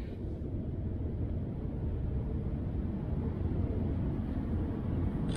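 Steady low rumble of vehicle noise, with no distinct events.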